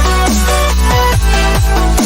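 Electronic dance music with heavy bass and repeated falling pitch drops on a steady beat.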